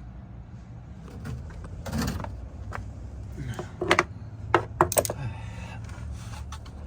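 Hand tools and metal parts being handled: a knock about two seconds in, then a quick run of sharp metallic clinks a little after halfway.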